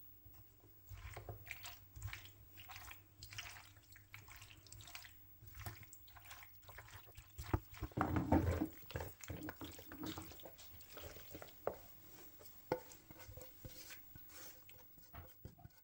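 Water splashing and dripping, with scattered knocks and clicks, loudest about eight seconds in.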